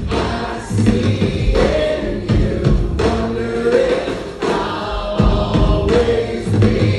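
Live band music with a large group of voices singing together.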